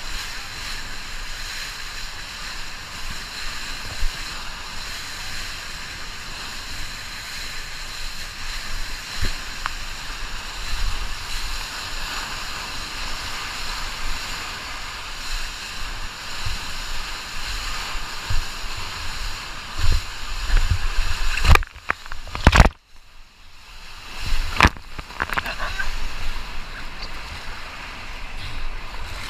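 Whitewater rushing and splashing over a riverboard-mounted action camera as the board surfs a river wave, with low thumps of water slapping the board. About three-quarters of the way through, the sound drops out to a dull hush for a couple of seconds, then the rushing and splashing come back.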